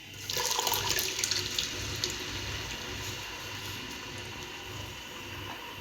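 Wet ground masala paste hitting hot oil: a sudden loud sizzle about a third of a second in that eases to a steady crackling sizzle as the masala starts to fry.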